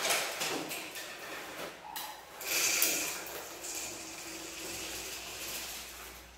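A plastic spice packet crinkling as powder is shaken from it into a small glass spice jar, with a few faint clicks of glass. The rustle swells most strongly a little past halfway through.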